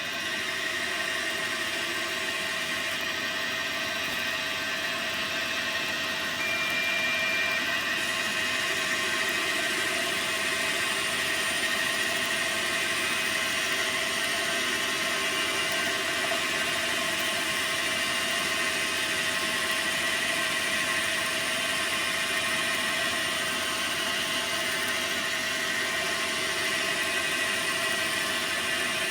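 Dyna Mechtronics DM3000 CNC lathe running steadily, a whine at several fixed pitches over constant machine noise, a little louder from about eight seconds in.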